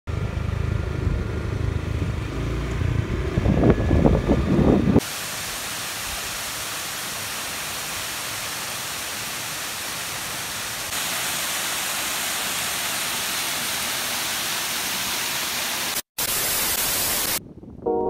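A low rumble of wind buffeting the microphone for about five seconds, then a steady, even rush of falling water from a waterfall, broken by abrupt cuts. Music starts just before the end.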